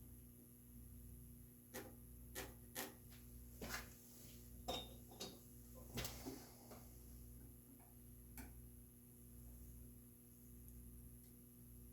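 Scattered light clicks and taps of marking-out tools on an oak board while a mortise is laid out by hand, over a faint steady hum.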